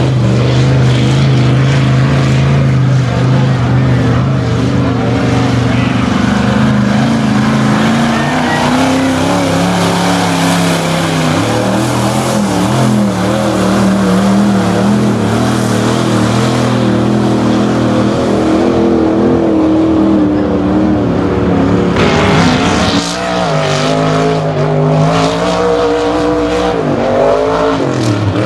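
A mud-bog pickup truck's engine running at high revs as it churns through a mud pit, with a steady hiss of spinning tires and flung mud. The engine note wavers, steps down about halfway through and drops again a few seconds before the end.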